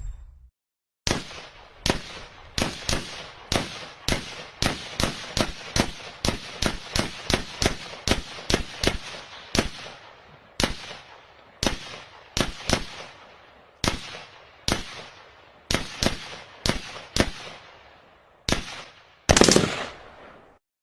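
Gunshot sound effect: a shootout of single shots fired at an uneven pace, several a second at first and then in sparser clusters. A longer, heavier bang comes near the end.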